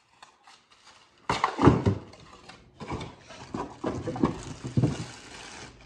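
Cardboard packaging and a plastic bag being handled: light taps at first, then from about a second in loud rustling and crinkling with knocks as parts are pulled out of a box.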